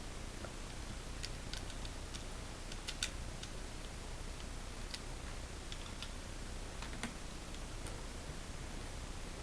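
Scattered small metal clicks and taps as an Allen-wrench bit on a multi-tool works a screw out of a rifle stock, irregular with a few sharper ticks, over a steady low hum.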